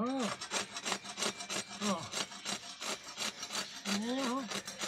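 Steel hacksaw cutting through a water buffalo's horn in quick, rhythmic back-and-forth strokes. The horn is being sawn off because it has grown around against the buffalo's neck and scrapes it.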